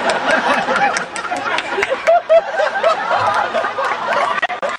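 Large audience laughing in a hall, many voices overlapping in chuckles and chatter, with scattered sharp claps.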